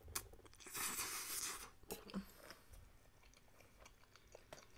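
A mouthful of spaghetti slurped in for about a second, then faint closed-mouth chewing with small clicks.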